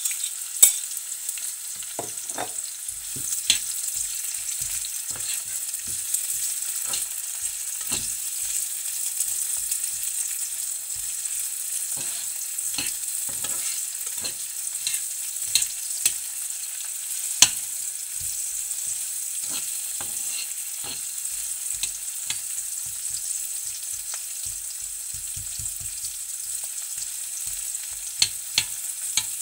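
Chopped red onion and garlic sizzling in olive oil in a small frying pan, with a steady hiss. A metal fork stirring them clicks and scrapes against the pan, with a few sharper clicks along the way.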